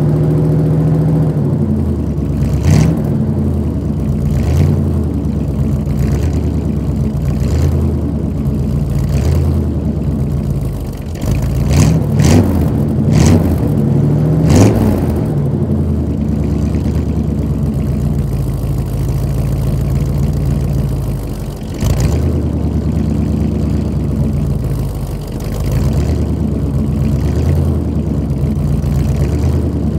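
1986 Chevy C-10 pickup's engine running at a steady idle while warming up after a cold start, heard from behind at the exhaust. About midway it is briefly revved a few times, the pitch rising and falling, with several short sharp pops scattered through.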